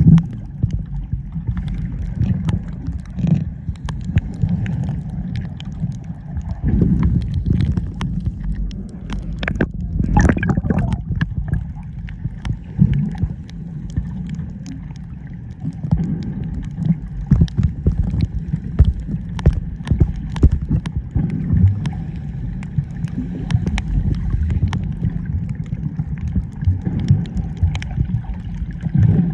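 Water gurgling and sloshing, a steady low rumble scattered with small clicks and pops.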